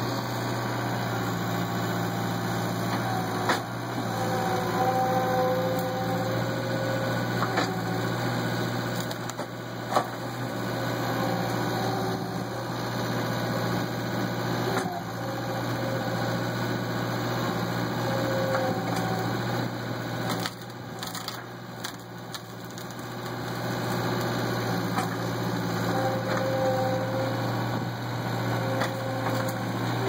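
Gehl skid-steer loader's engine running steadily, with short whines as the hydraulics work the grapple claw. Branches crack and snap sharply in the brush pile several times, a cluster of snaps coming about two-thirds of the way through.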